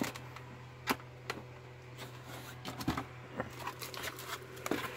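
Packaging being handled: crinkling plastic wrap and a cardboard knife-set box moved and set down, giving scattered taps and rustles with a sharp click about a second in. A steady low hum sits underneath.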